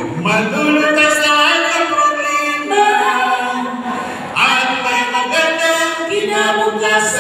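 A small group of men and women singing a song in Filipino together into microphones, with long held notes.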